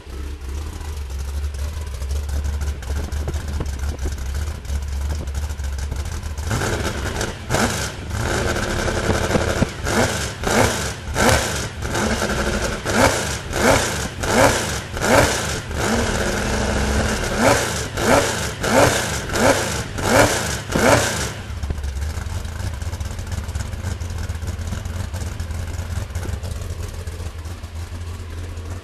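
Rebuilt Chevrolet 355 cubic-inch small-block V8 with a tunnel ram and a big solid-lifter camshaft, running on an engine stand and idling with the lope of its big cam. From about six seconds in it takes a quick run of sharp throttle blips, about one a second, then settles back to idle about twenty-one seconds in.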